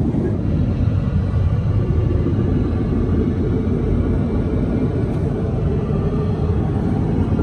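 Airbus A330-300 cabin noise in cruise: the steady low roar of the jet engines and airflow through the fuselage, unchanging throughout.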